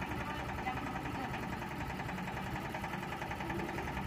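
Yanmar TS single-cylinder diesel engine powering a Hiab 140 crane, running steadily with a fast, even beat.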